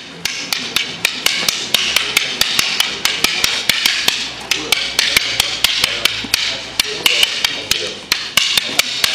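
Arnis fighting sticks striking each other in a fast two-person double-stick drill: a rapid, steady run of sharp clacks, about five a second.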